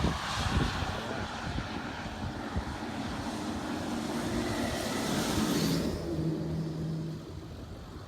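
Military convoy traffic passing on a road: a rushing of tyres and engines that drops away about six seconds in.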